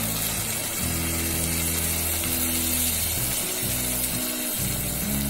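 Background music with held low notes over a steady sizzle from a hot pot of sweet corn, potato and carrot with coconut milk just poured in.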